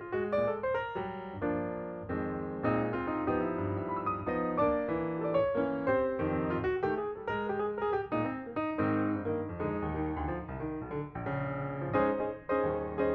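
Background music: piano, played as a continuous run of notes.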